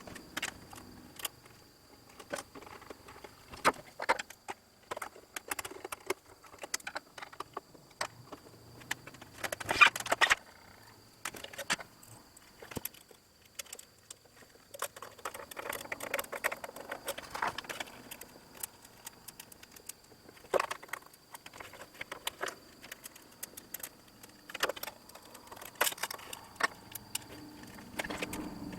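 Irregular metallic clinks, clicks and knocks of small parts and hand tools being handled, with a brief clatter about ten seconds in and a busier stretch a little later, over a faint steady high-pitched whine.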